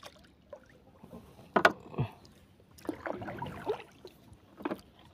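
Scattered knocks and bumps on a small wooden canoe as the people aboard shift about, the loudest about a second and a half in.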